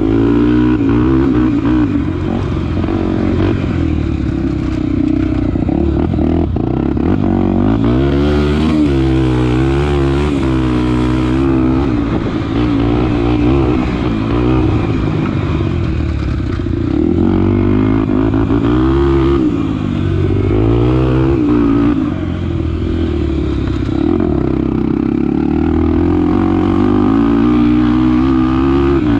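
Honda Tornado 250's single-cylinder four-stroke engine being ridden, its pitch rising and falling over and over as the throttle is opened and closed.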